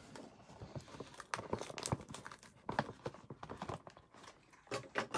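Hands handling a cardboard box and its plastic packaging: an irregular run of knocks, taps and crinkling rustles.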